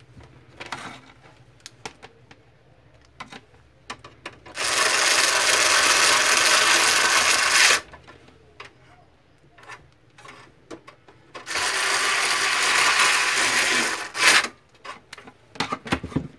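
Electric screwdriver running in two bursts of about three seconds each, driving screws into the printer's casing, with small clicks and knocks of handling between the bursts.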